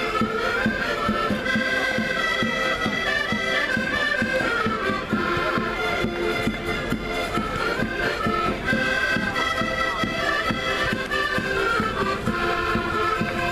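Portuguese traditional folk music played live by a band with accordions carrying a quick, busy melody. Percussion keeps a steady beat underneath.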